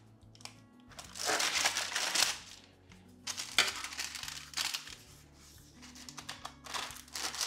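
Baking parchment crinkling and rustling on a metal baking tray as hands and a metal bench scraper cut and push apart a very wet sourdough loaf. There are two longer bursts, about a second in and about three and a half seconds in, then shorter rustles near the end.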